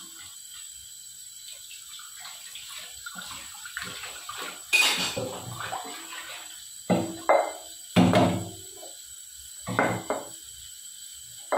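Tap water running into a stainless steel sink while a stainless steel pressure cooker is rinsed and handled, with several ringing metal clanks as the pot knocks against the sink in the second half.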